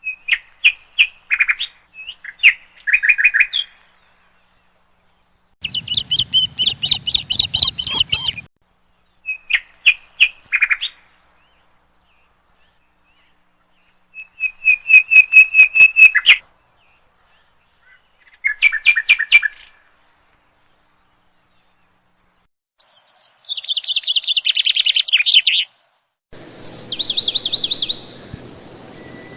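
Birds chirping in short bursts of quick, repeated high chirps, with stretches of silence between the bursts.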